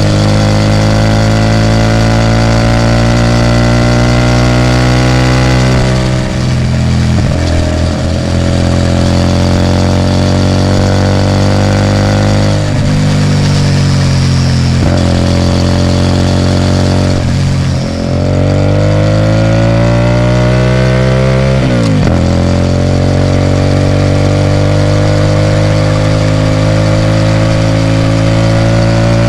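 Hyosung GT250R 250 cc V-twin running through a loud Ixxile Racing aftermarket exhaust. The engine note climbs slowly as the bike pulls, then drops back at each upshift, about four times.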